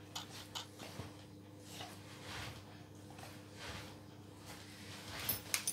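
Quiet room: a faint steady hum with soft scattered clicks and rustles, and a short cluster of sharper clicks near the end.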